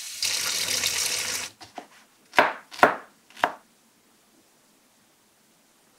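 Kitchen tap running onto lemons in a glass bowl in a steel sink, cutting off about a second and a half in. Then a few light clicks and three sharp knocks about half a second apart.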